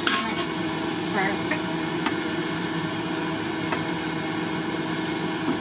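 A pan lid lifted off with a brief clatter right at the start, then mixed vegetables sizzling in a frying pan as they are stirred with a spatula, with a couple of light spatula clicks against the pan. A steady low mechanical hum runs underneath.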